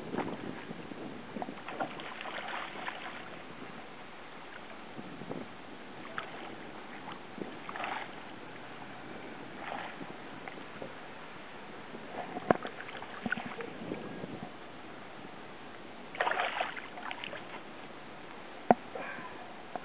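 Hooked tarpon splashing in the shallows in short irregular bursts as it is landed by hand, with a few sharp knocks.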